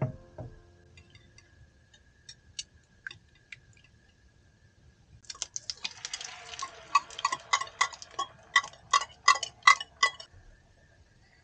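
Wire whisk beating eggs in a bowl: scattered light ticks at first, then from about five seconds in a quick run of clicks and ringing taps as the whisk knocks against the bowl while the egg is scraped out into the pan.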